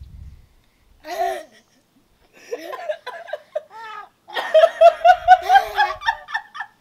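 People laughing hard: a few short vocal bursts, then a loud run of quick, even laughs in the second half.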